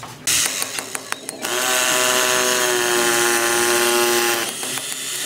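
Corded electric rotary hammer drill running steadily for about three seconds, boring into the brick and mortar wall, then stopping abruptly. It is preceded by about a second of loud clattering.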